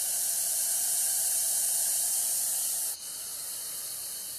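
Eastern Russell's viper (Daboia siamensis) hissing: a loud, long hiss that drops suddenly to a quieter hiss about three seconds in.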